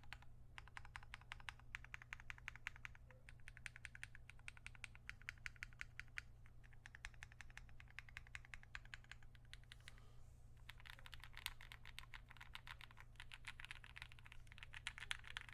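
Typing on a Momoka Zoo65 mechanical keyboard with lubed KTT Rose linear switches, PBT keycaps and an FR4 plate. The keystrokes are faint and come in quick runs, with short pauses between bursts.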